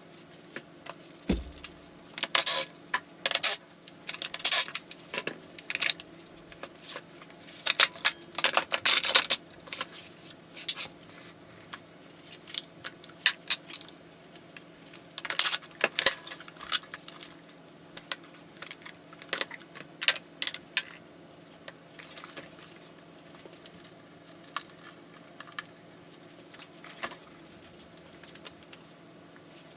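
Metal hand tools and engine parts clinking and clattering in irregular bursts as a small engine is taken apart, over a faint steady hum.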